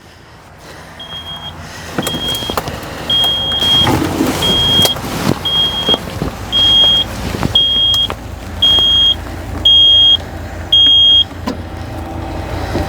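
Electronic warning buzzer on the Kobelco SK160 excavator sounding, with power now reaching its electrics: ten short, high-pitched beeps at a steady pitch, about one a second. A low engine rumble runs underneath and grows slowly louder.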